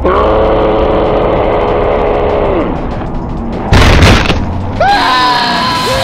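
A mud-bog truck's engine held at high revs, falling away after about two and a half seconds, then a loud boom at about four seconds as the truck tips over in the mud, and a rising pitched tone that levels off near the end, with music.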